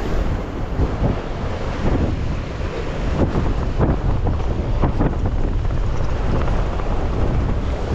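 Wind buffeting the microphone over surf breaking and washing against rocks, with a few short splashes in the middle.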